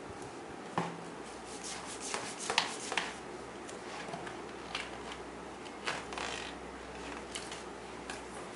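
A toddler's hands handling the stiff cardboard pages and flap of a lift-the-flap board book, with the card rubbing and scattered sharp taps and clicks. The loudest taps come about two and a half to three seconds in.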